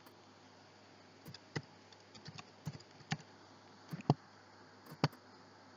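Scattered clicks of a computer keyboard and mouse: about half a dozen short, sharp taps a second or so apart, over a faint steady hum.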